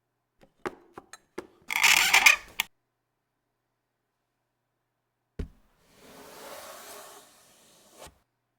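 Hand-made Foley sound effects: a few sharp clicks and knocks, then a loud rough scraping rustle about two seconds in. A thump follows, then a softer rustle, and a last click near the end.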